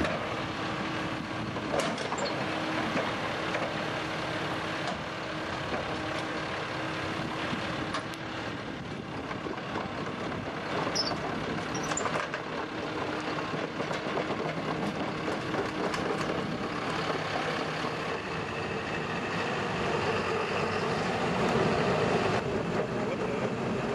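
Engine of a CRS-V tracked sonic drill rig running steadily as the rig crawls down a trailer's ramps onto the ground, with a few short knocks along the way.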